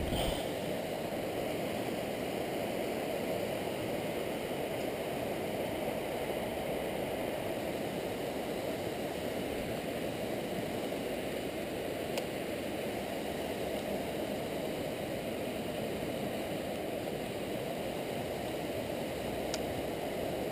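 Steady rushing of river water running over rocky riffles and rapids. A brief knock comes right at the start, and a couple of faint ticks come later.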